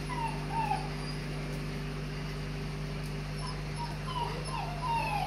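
White Swiss Shepherd dogs whimpering: short high whines that bend up and down, a couple near the start and several more toward the end, over a steady low hum.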